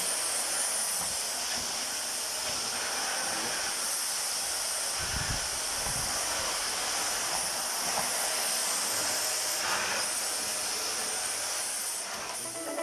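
A steady high-pitched hiss, like air rushing, that cuts off abruptly near the end.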